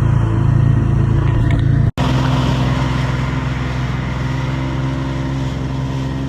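Jet ski engine running steadily. The sound cuts off for an instant about two seconds in and comes back with a slightly different engine note.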